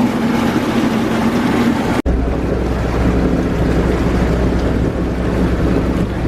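Boat engine running steadily under water and wind noise on the microphone. The sound cuts out for an instant about two seconds in and comes back with a deeper engine hum.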